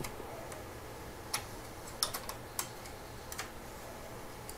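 Light plastic clicks and taps at irregular moments, a cluster of them around the middle, as fingers work the connectors and latches of the scanner's flat ribbon cables on the printer's main board.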